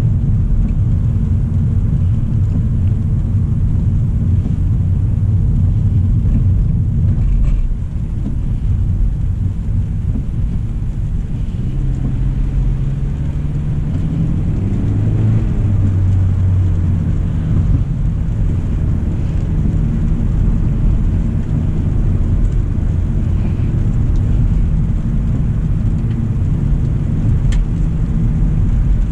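Steady low road and tyre rumble of a 2025 Hyundai Elantra SEL being driven, with a low engine hum. A little before the middle the engine note comes up and rises slightly in pitch for a few seconds, then settles back into the steady rumble.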